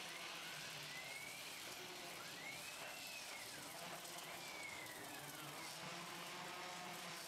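Gantry drive motors of a Start-2M CNC plasma cutting machine whining, their pitch rising then falling several times as the gantry speeds up and slows down for each move, over a steady hiss.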